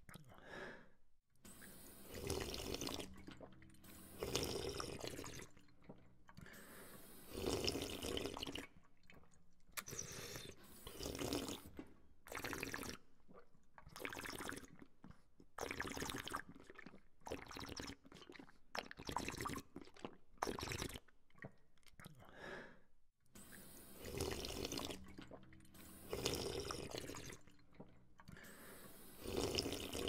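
A person drinking from a water fountain: water splashing and being sipped and slurped in short bursts about every one to two seconds.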